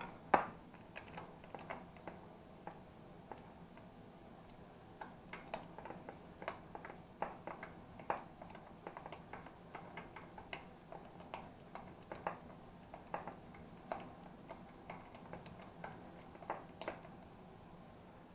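Irregular light clicks and taps, roughly one or two a second, from small hand work at a bench. The engine is not running.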